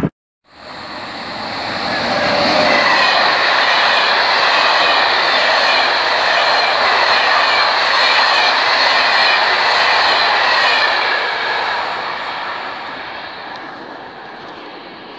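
Corail passenger train hauled by a BB 22200 electric locomotive passing at speed: rushing wheel-on-rail noise swells over about two seconds, holds, then fades away near the end.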